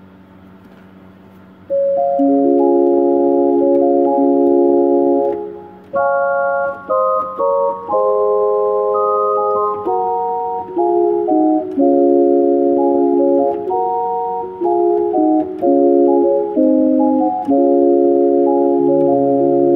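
Electronic keyboard playing organ-like chords and a melody of held notes that do not fade, coming in loudly about two seconds in after a faint hum.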